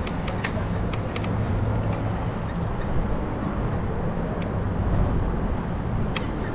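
Bicycle rolling along a bridge deck, filmed by a GoPro mounted on the bike: a steady low rumble of wind over the camera and tyre noise, with a few scattered sharp clicks from the bike.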